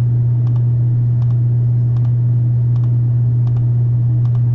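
A series of faint, evenly spaced computer clicks, roughly one every half second to second, as a list is randomized over and over. Under them runs a loud, steady low hum.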